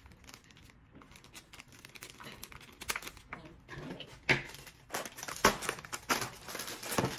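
Crinkling and tearing of a blind-bag toy's plastic wrapper as it is pulled open: a faint crackle at first, then busier and louder from about three seconds in, with a couple of sharp rustles.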